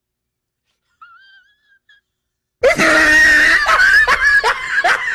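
A person laughing in a wheezing, high-pitched way: a run of short falling-pitch 'hee' sounds, about two to three a second. The laughter starts suddenly and loudly about two and a half seconds in, after near silence.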